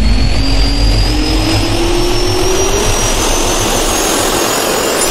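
Jet-turbine spool-up sound effect: a loud, rushing roar with a whine that rises steadily in pitch.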